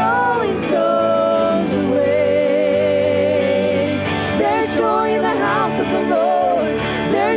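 Live church worship band: male and female singers holding long notes together over keyboard, electric guitar and drums.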